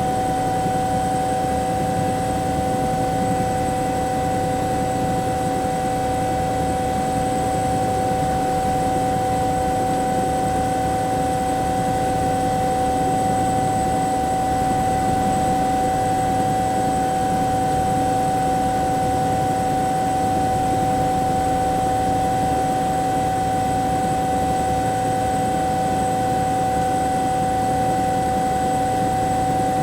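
Bell 212 helicopter heard from inside the cabin, running steadily: a constant whine from its twin turboshaft engines over a rapid low beat from the rotor and drivetrain, with no change in pitch or level.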